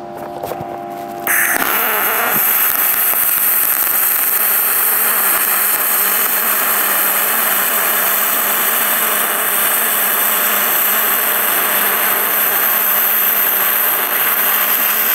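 MIG welding arc on aluminum strikes about a second in and runs as a steady loud hiss: spray-arc transfer from an HTP MIG 2000i inverter welder. It starts with no popping or crackling because the piece is already preheated from the weld on the other side.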